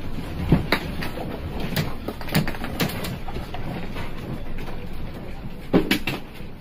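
A handful of sharp knocks and clicks, two close together near the end, over a steady low rumble of background noise.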